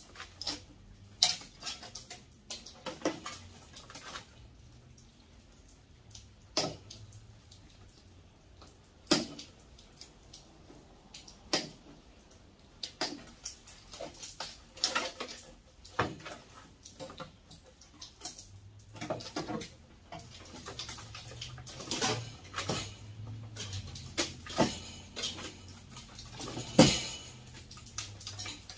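Irregular clanks, clicks and knocks of sheet-metal furnace parts and hand tools being handled while a furnace is stripped for scrap. A low steady hum comes in about two-thirds of the way through.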